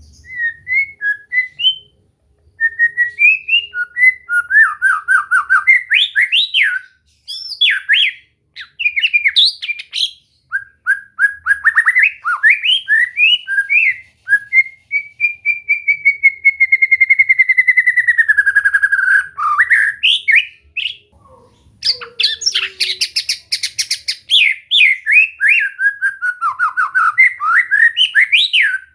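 White-rumped shama (murai batu) singing: loud, quick phrases of varied whistles and trills broken by short pauses, with one long drawn-out whistle sliding slowly downward about halfway through.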